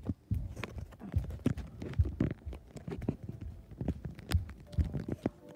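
Irregular footsteps and knocks from a handheld camera being carried across a tiled floor, a few thumps a second.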